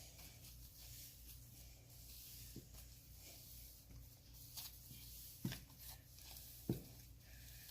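Near silence over a steady low hum, with a few faint soft handling sounds and two small thumps near the end.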